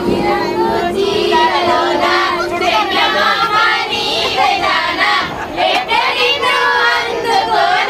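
A group of children singing together in a passenger train coach, several voices at once.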